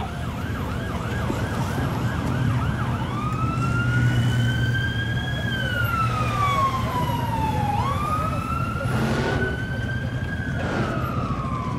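Emergency vehicle siren: a fast warbling yelp for the first three seconds, then switching to a slow wail that rises and falls in pitch. A steady low rumble runs underneath.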